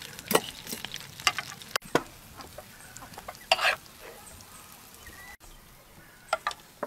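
Bell peppers stuffed with pork frying in oil, with faint sizzling and scattered clinks and scrapes of a metal spatula against the pan and a steel colander.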